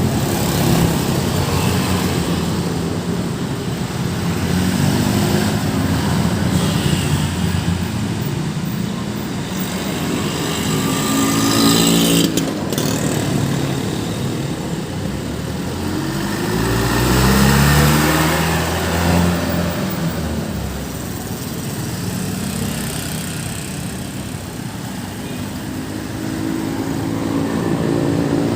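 Busy road traffic: cars and motorcycles passing one after another, their engines rising and falling in pitch. About two-thirds of the way through, a large vehicle's engine passes close and is the loudest sound.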